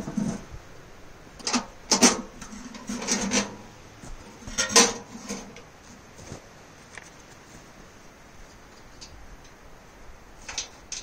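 Metal clinks and scraping inside a steel ammo-can stove as wing nuts are fitted onto the leg bolts through its floor. The sounds come in a handful of short bursts over the first five seconds, then go quiet except for a couple of light clicks near the end.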